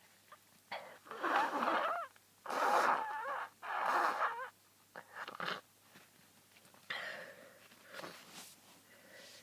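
A person with a head cold sneezing three times in quick succession, the first with a wavering voiced build-up, followed by shorter, quieter breaths.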